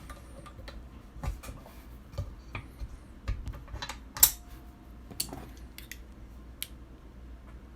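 Brass rifle cases and the metal parts of a Lyman case trimmer clicking and clinking as trimmed cases are handled. There are a dozen or so irregular small clicks, the sharpest a little past the middle.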